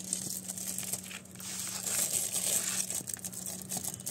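Crinkling and rustling of silver foil-lined paper plates being handled while a spoon serves curry onto them, with scattered light clicks.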